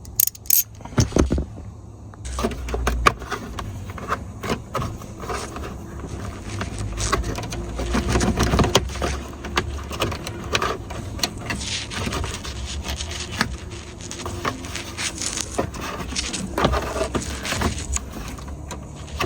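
Clicks, scrapes and rattles of hand work on a car's lower steering column: a ratchet on the column bolts and plastic trim being pried loose, with handling knocks.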